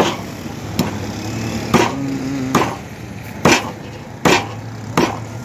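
A cleaver chopping a fish on a wooden block, seven sharp even chops about one every 0.8 seconds, over a low steady engine hum.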